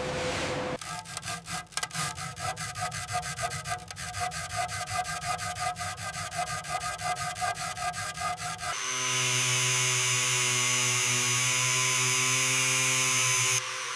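Hand rasping or filing strokes, about four a second, followed from about nine seconds by a power sander running steadily with a constant whine, which cuts off suddenly near the end.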